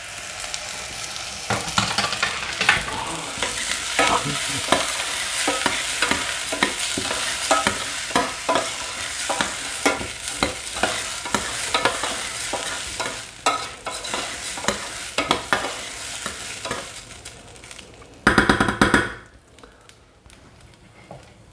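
A metal spoon stirs and scrapes basmati rice and rice noodles that are toasting in butter in a stainless steel pot. There is a sizzling hiss with frequent clinks of the spoon against the pot. This is the toasting stage before the rice is deglazed with broth. Near the end comes a louder rattle lasting about a second, then the sound dies down.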